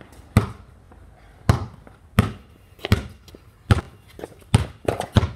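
A basketball being dribbled: about eight separate bounces, a little under a second apart, coming quicker near the end.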